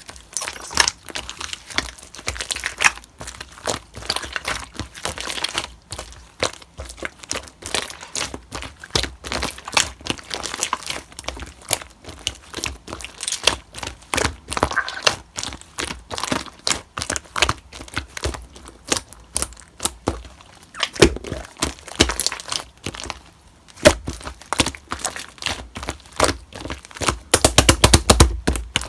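Slime being squeezed and pressed by hand, making irregular sticky clicks and crackling pops, with a fast, louder run of clicks near the end.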